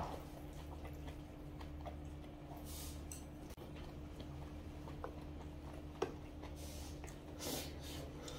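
Close-up eating sounds: a person chewing a mouthful of food, with a sharp click at the start and another about six seconds in, from utensils on the stainless steel lunch containers. A steady low hum runs underneath.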